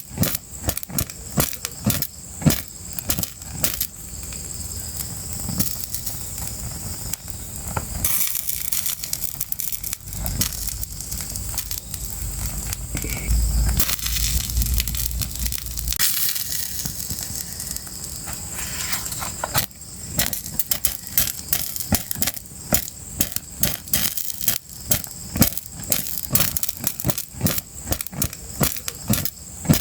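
Crackling fire with many sharp pops, thickest near the start and again in the later part. In the middle the pops thin out into a steadier hiss with a low rumble underneath for several seconds.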